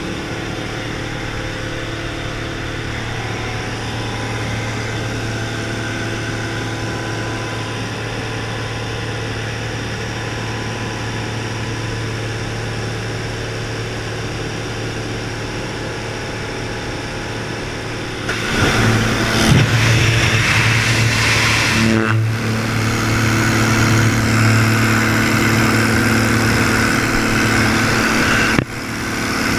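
Single-engine light aircraft's piston engine droning steadily, heard from inside the cabin. About 18 seconds in, a loud rush of wind joins the engine as the jump door stands open, with a brief sudden dip in the noise near the end.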